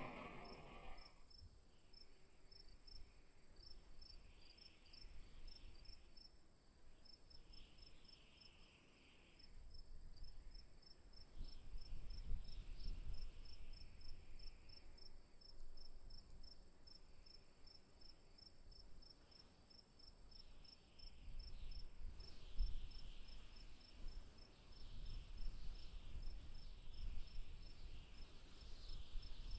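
Crickets chirping in an even rhythm, several chirps a second, over a constant high insect drone. A low rumble swells and fades underneath, and a louder sound dies away in the first second.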